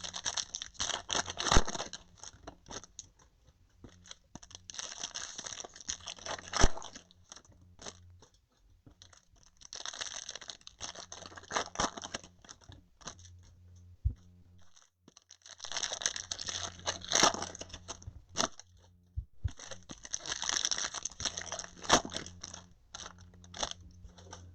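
Trading-card box and packs being torn open, the wrappers crinkling and crackling in five bursts of a few seconds each, with small clicks and knocks in between.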